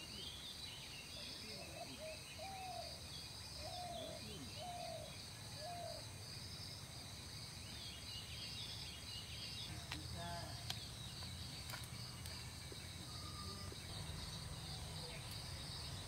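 Quiet outdoor ambience: a steady, high insect chorus, with a bird giving a run of about five short, arching calls in the first half.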